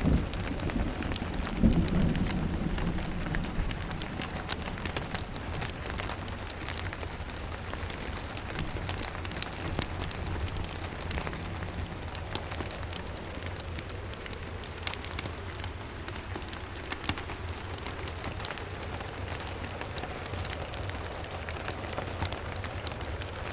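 Steady rain with fine scattered ticks, and a low thunder rumble that swells about two seconds in and fades over the next few seconds.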